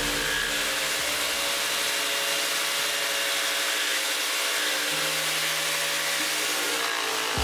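A small table-mounted saw with a thin reciprocating blade runs steadily while cutting through plywood.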